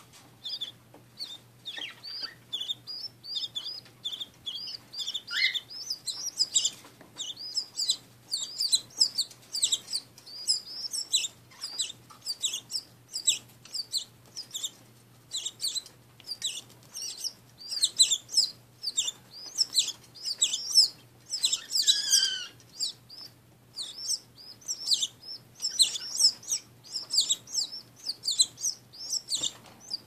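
Canary nestlings begging with rapid, high-pitched cheeps as the hen feeds them. The calls start sparse, grow denser and louder after a few seconds, and are loudest about two-thirds of the way through.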